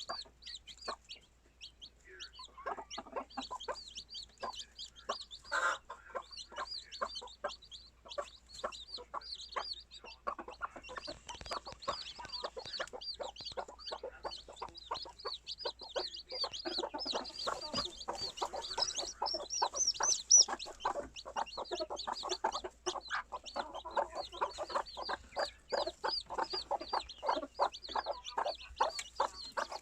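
A brood of small poultry chicks peeping continuously in fast, high, repeated chirps, joined from about two seconds in by rapid lower clucking that grows busier after about ten seconds.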